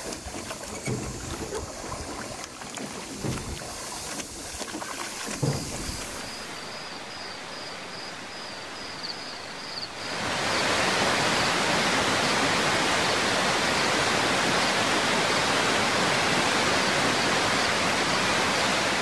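Quiet outdoor ambience with a few soft knocks, then about halfway through a steady, loud rush of flowing water from a rocky stream takes over and holds unchanged.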